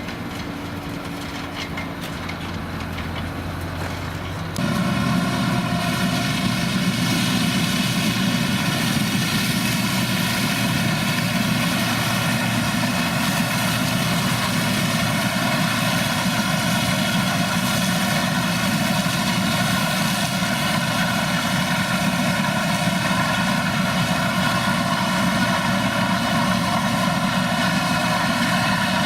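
Heavy farm machinery running steadily. About four and a half seconds in, the sound jumps louder to a steady, even drone with a whine of many tones above it.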